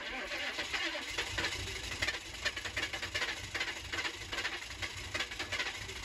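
1996 GMC K3500's 6.5 L turbo-diesel V8 catching on a cold start and running, a fast, dense clatter that comes in suddenly at the start.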